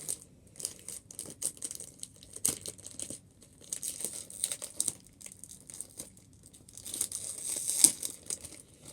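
Plastic packaging of a small LEGO set being crinkled and torn open, in irregular bursts of crackling. The loudest burst comes near the end.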